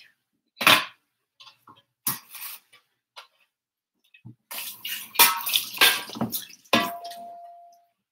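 Kitchen clatter of dishes and utensils with water splashing at a sink: a few separate clinks, then a busier stretch in the second half, and one item ringing briefly near the end.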